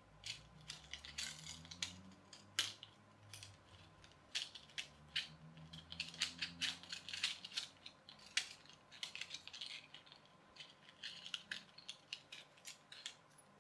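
Irregular small clicks and rattles of plastic clockwork toy car parts handled in the fingers as the spring motor is wound and pressed into the chassis.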